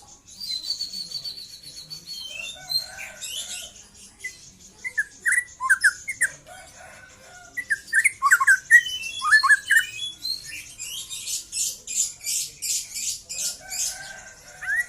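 Young white-rumped shama (murai batu) singing a varied song, just out of its spotted juvenile plumage. It opens with a thin trill, goes on to short clear whistled notes sliding downward, and near the end gives a fast run of harsh scratchy notes, about three a second.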